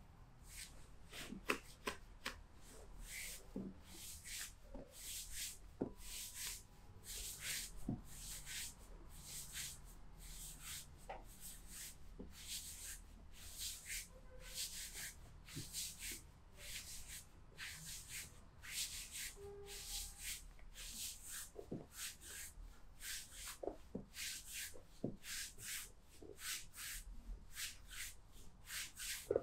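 Hands rubbing and stroking over skin in a back massage, a regular swish of palm strokes at about one and a half a second.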